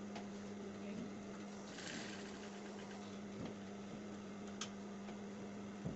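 Industrial sewing machine running while fabric is fed under the foot: a steady motor hum with soft fabric rustle, and a single sharp click about two-thirds of the way through.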